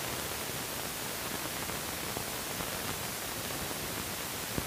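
Steady hiss and static of an old film soundtrack, with a faint click near the end.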